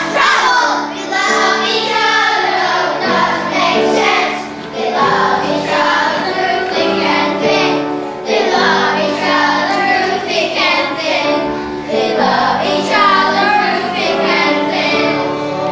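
Children singing a song over steady instrumental accompaniment.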